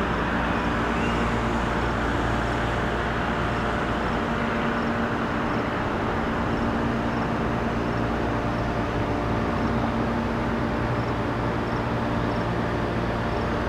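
Steady road-traffic noise with a constant low engine hum.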